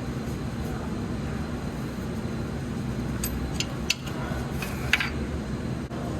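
Several sharp clicks and clinks, about four between three and five seconds in, as tools and metal parts knock together while working on the engine, over a steady low hum.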